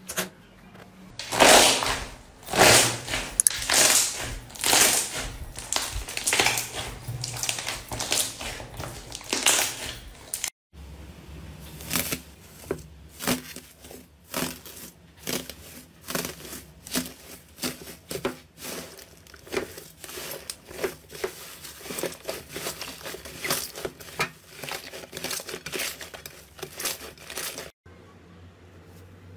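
Hands working slime: loud sticky pops and crackles as clear slime is stretched and pulled, then, after a cut, gold foil laid over an inflated slime mound crinkling and crackling under pressing fingers. Quieter for the last second or so.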